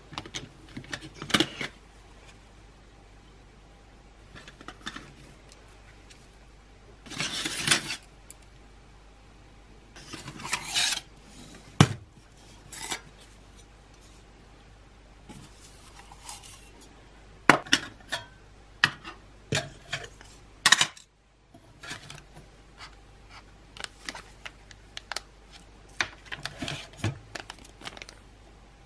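Handling noise of a camping cook set being unpacked: metal cups and parts knocking and clinking on a wooden table among irregular sharp clicks, with short bursts of rustling from the mesh stuff sack. Near the end a small plastic zip bag crinkles.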